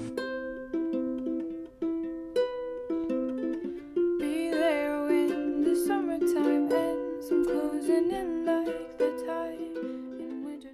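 Background music: a plucked string instrument picking out notes, with a singing voice joining about four seconds in.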